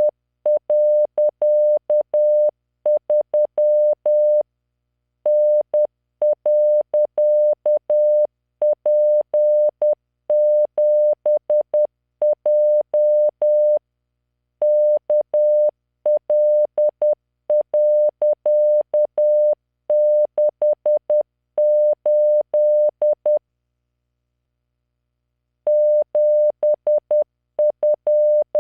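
Computer-generated Morse code practice tone, a single steady 600 Hz beep keyed at 10 words per minute into dots and dashes. It sends random five-character code groups with short pauses between groups, and there is a longer pause of about two seconds near the end.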